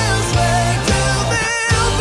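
Pop-rock backing music with a steady drum beat, bass, and a wavering sung melody line.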